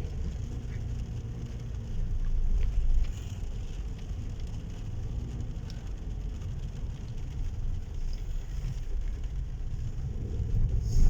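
Steady low rumble of a car on the road, with a faint hiss of heavy rain. The rumble swells briefly about two to three seconds in and again near the end.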